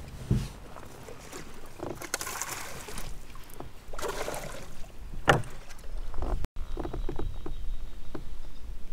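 A hooked fish splashing and thrashing at the water's surface beside a kayak in a few bursts, with a sharp knock about five seconds in; after a break, small knocks and clicks of the fish being handled in the kayak.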